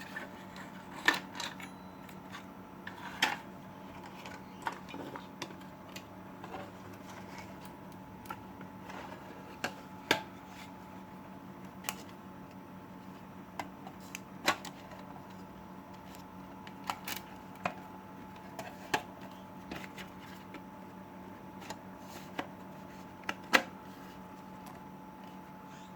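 Irregular clicks, taps and knocks of a converted computer power supply's metal case being closed up and handled, with a few sharper clicks scattered through.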